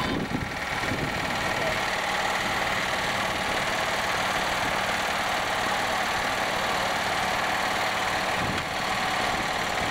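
Small garden tractor engine running steadily as the tractor slowly tows a loaded trailer.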